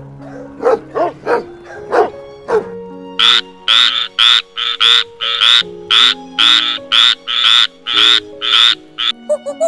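Frog croaking in a steady series of loud, rasping calls, about two a second, beginning about three seconds in. It is preceded by a few short dog barks and yips, and background music plays throughout.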